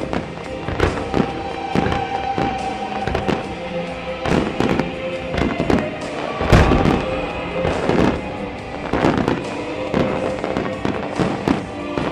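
Aerial fireworks bursting one after another in quick succession, over music played through loudspeakers; the loudest, deepest boom comes about six and a half seconds in.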